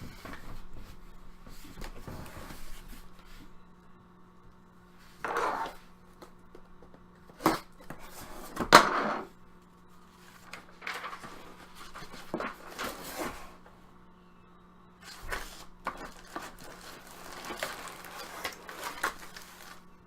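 Cardboard card box and its packaging being handled and opened: scattered rustles, scrapes and knocks, with two louder handling noises about five and nine seconds in.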